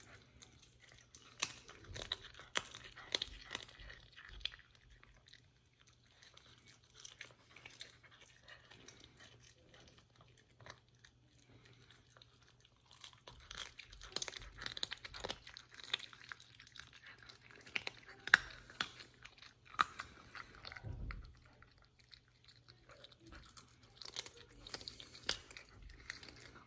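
A serval eating raw meat from a hand: wet licking and chewing with irregular crunching clicks, in bouts separated by quieter pauses.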